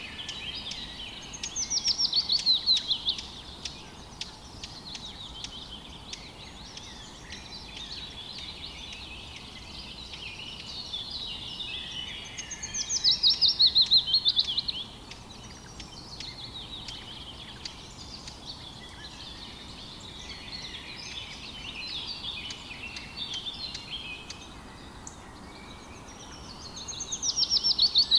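Outdoor birdsong chorus: many birds chirping, while one nearby songbird sings a loud, rapid song of notes falling in pitch, about a second and a half long, three times, roughly every thirteen seconds. Under it runs a faint steady rush of river water.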